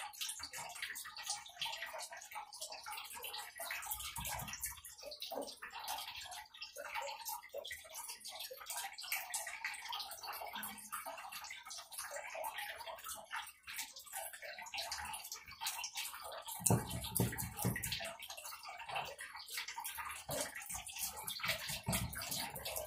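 A small paint sponge dabbing and scrubbing white vinyl paint onto a bare wooden cutting board: a close, dense, irregular scratchy patter, with a few low bumps about two-thirds of the way through as the board is handled.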